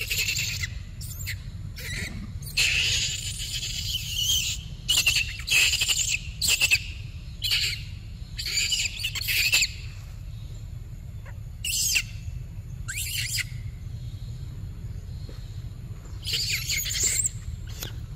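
Macaques squealing and screeching in a dozen or so irregular high-pitched bursts, the longest nearly two seconds, over a steady low rumble.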